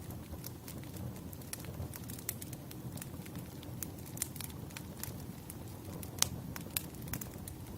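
Burning firewood crackling, with irregular sharp pops and snaps over a low steady rumble. The loudest pop comes about six seconds in.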